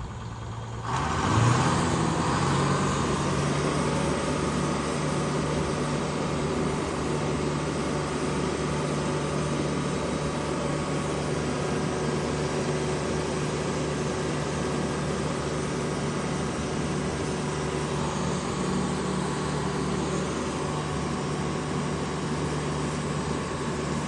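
Sawmill engine running steadily while its new hydraulic feed is tested. There is a short lull in the first second, then a steady hum.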